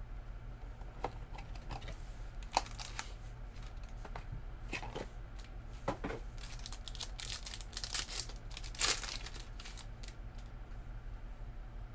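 Trading card hobby box and packs being handled and opened by hand: crinkling and tearing of packaging with scattered sharp clicks and rustles, the loudest rustle about nine seconds in, over a steady low hum.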